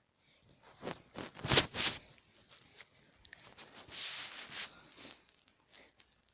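A sleeper snoring, with irregular breaths: a cluster of sharp crackling clicks about one to two seconds in, then a longer hissing breath around four seconds in.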